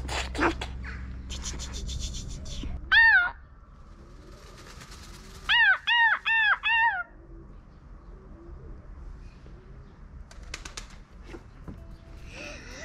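Peacock calling loudly: one call about three seconds in, then a quick run of four calls around the middle. Each is a short wail that rises and falls in pitch.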